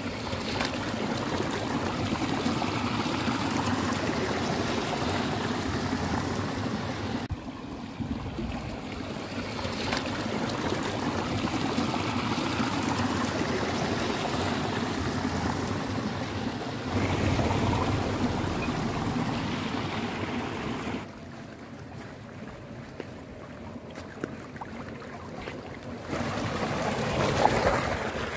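Water running steadily along a narrow stone-lined irrigation channel, a continuous rushing and trickling. The level jumps abruptly up or down a few times.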